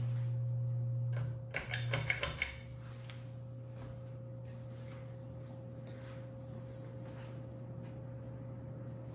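Murray Feiss ceiling fan with a 172 mm motor running on high speed with a steady low hum and a faint steady higher tone. A short run of clicks and rattles, typical of the pull-chain speed switch and its chain, comes about a second in, after which the hum settles quieter.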